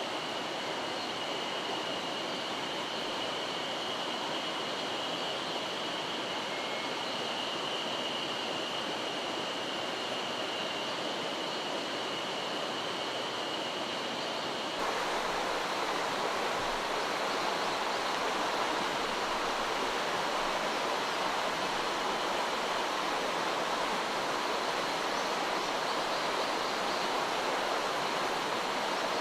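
Mountain stream water rushing steadily over rocks. A thin, steady high tone sits over it for the first half. About halfway through, the water gets louder and fuller, as a different stretch of stream takes over.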